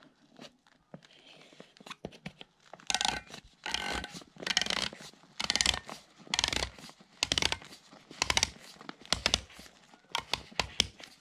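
Crinkling and rubbing of an inflatable life jacket's bladder and plastic inflator head under the hands while a new bobbin is fitted, in a run of irregular scraping rustles that begins after a couple of quiet seconds.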